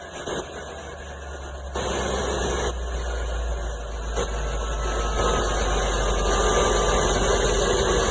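1997 Ford F-250's engine idling steadily with the vacuum leak repaired by a new hose, running smoothly. It gets louder about two seconds in and again around five seconds.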